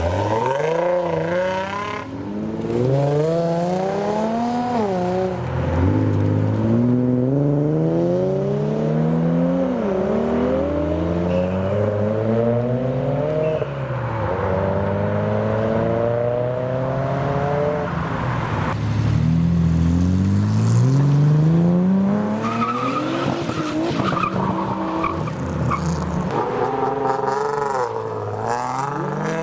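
Several Japanese sports cars, Nissan 350Zs among them, pulling away one after another and accelerating past. Each engine note climbs in pitch, drops at a gear change and climbs again.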